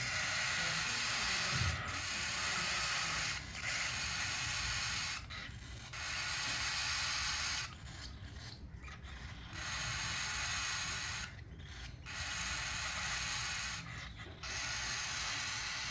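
Cockatiel chicks giving their raspy, ratcheting food-begging calls while being syringe-fed, in repeated stretches of one to three seconds with short pauses between.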